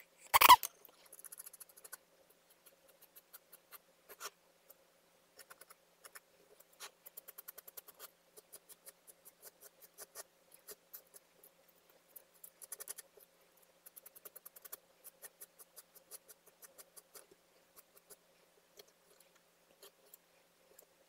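Metal palette knife scraping and tapping decorative plaster on a palette board, giving a run of small irregular clicks and scrapes, with one sharp knock about half a second in.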